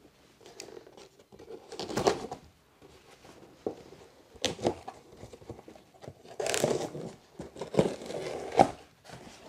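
Scissors slitting the packing tape along the top seam of a cardboard box, with the tape tearing and crinkling in irregular bursts that come thicker and louder in the second half.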